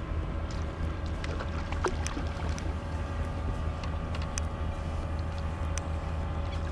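A steady low engine rumble with a few light clicks and ticks over it.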